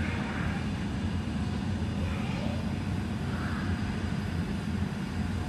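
Steady low rumbling hum of an aquarium hall's machinery and room noise, with a few faint distant voices.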